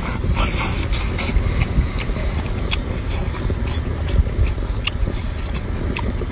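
Close-up wet chewing and lip-smacking of a man eating cooked octopus and seafood: many short, sharp mouth clicks over a steady low rumble.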